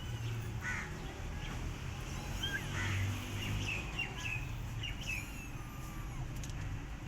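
Young kittens mewing over and over in short, high calls.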